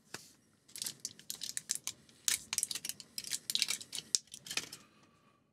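Plastic blister pack with a foil backing crinkling and tearing as an e-liquid capsule is worked out of it: a quick run of sharp crackles and snaps that dies away near the end.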